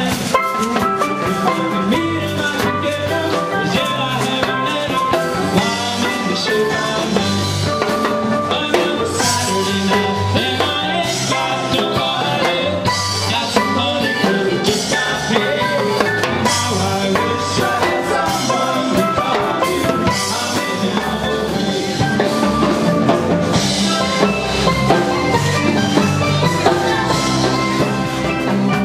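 Upbeat music with a steady drum beat.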